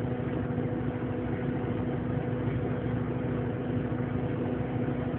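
A 480-horsepower truck engine pulling steadily uphill under a 25-tonne load, heard inside the cab as a constant drone with a steady hum.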